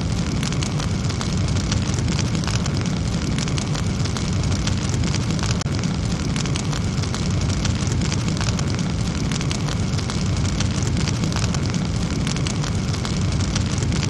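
An added sound effect: a steady, even noise, heaviest in the low end, with a fine crackle throughout.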